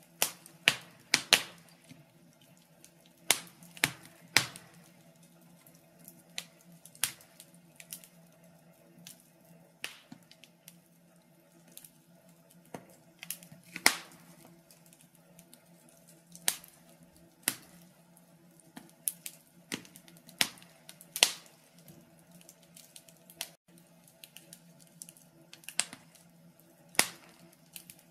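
Wood fire crackling in a stove: irregular sharp pops and snaps, some close together and some seconds apart, over a faint steady hum.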